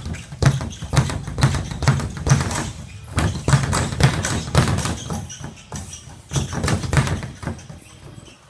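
Speed bag being punched in a fast steady rhythm, the bag rebounding off its overhead platform in a rattle of thumps, several a second, tailing off near the end.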